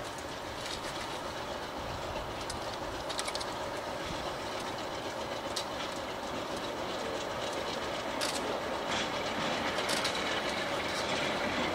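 Train rolling along the rails: a steady rumble with a few sharp clicks, growing slightly louder toward the end.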